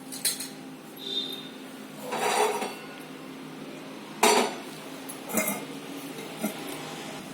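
Metal kitchen pans and utensils clinking and clattering: a few separate knocks with a short scrape about two seconds in, the loudest knock about four seconds in.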